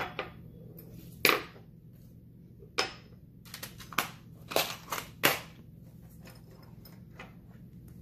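Irregular sharp clicks and clacks of small hard objects being handled, about a dozen in the first five seconds and a few fainter ones after.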